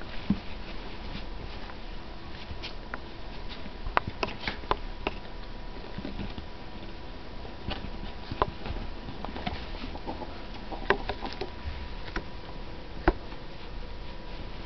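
Two ferrets scuffling on a fabric cushion and a pile of clothes: scattered rustling and scrabbling with sharp taps and knocks, a few louder ones spread through, the loudest about thirteen seconds in.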